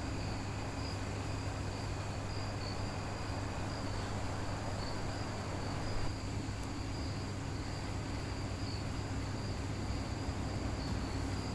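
Crickets chirping steadily in a night-time room ambience, over a constant low hum and hiss. A brief soft rustle comes about halfway through.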